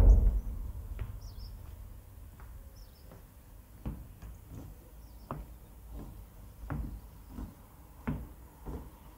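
Footsteps on a wooden plank bridge walkway, an even knock about every 0.7 seconds that grows clearer in the second half. A low rumble at the start fades over the first couple of seconds, and birds chirp faintly.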